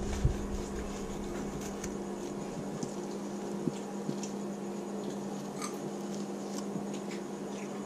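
Kitchen knife slicing lengthwise through a ladyfish along its back on a plastic cutting board: faint, scattered scratchy clicks over a steady low room hum.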